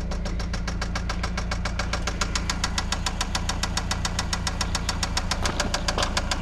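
Eagle Talon ESi four-cylinder engine running with a rapid, evenly spaced rod knock, which grows sharper about two seconds in. It is the sign of a worn or failing connecting-rod bearing.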